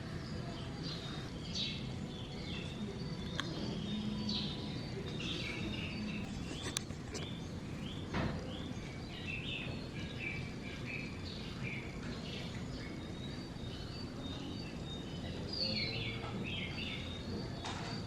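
Small birds chirping, many short repeated chirps over a steady background hiss, with a few faint clicks.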